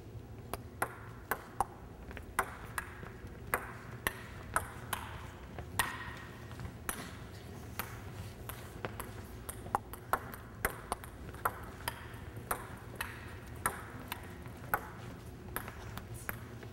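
Table tennis rally: a celluloid ball bouncing on the table and struck back and forth by rubber-faced paddles, a run of sharp, irregular clicks about one or two a second.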